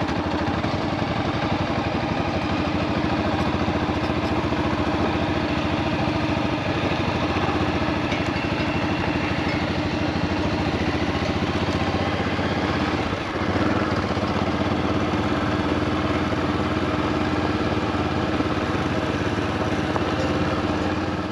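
Single-cylinder dual-sport motorcycle engine running steadily at low speed on a gravel track, with a brief dip in level about thirteen seconds in.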